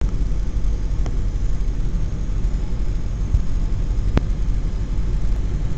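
Piper Cherokee single-engine light plane's engine and propeller running steadily, a low drone heard inside the cockpit. A short, sharp click about four seconds in, with a fainter one about a second in.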